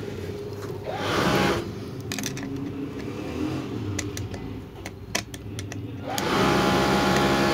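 An electric motor whirs up in two short bursts, briefly about a second in and for about a second and a half near the end, over a steady low hum. Between them come light metallic clicks of a screwdriver tightening the hook screw of an industrial sewing machine.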